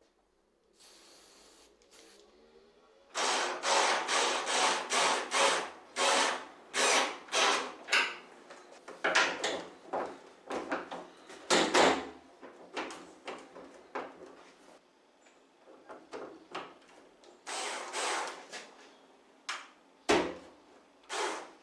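Rhythmic rubbing strokes against a surface, about two a second, starting about three seconds in, with pauses and a second run near the end.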